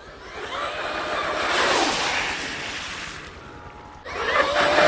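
Traxxas X-Maxx electric RC monster truck running through floodwater: the motor whines and the tyres throw up a hissing spray. The sound swells as the truck comes closer, eases off, and then starts again suddenly about four seconds in with more motor whine and splashing.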